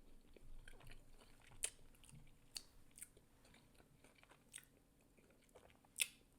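A person chewing food with the mouth close to the microphone: faint, sparse wet mouth clicks and smacks, a handful of sharper ones spaced about a second apart.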